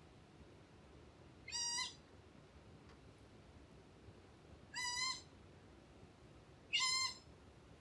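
Ryukyu scops owl (the Ryukyu race of the Japanese scops owl) giving three short, cat-like calls about two seconds apart, each under half a second long.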